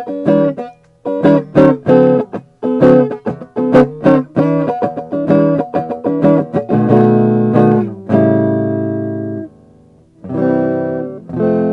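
Electric guitar on its neck pickup through a Bugera 5-watt tube amp, playing strummed chords: short choppy strums, then held chords ringing out for a couple of seconds, a brief gap, and more chords near the end. Both tone and volume knobs are turned fully down, yet the guitar still sounds, very thick on the bottom end and not really there on top: the volume knob is not working as it should.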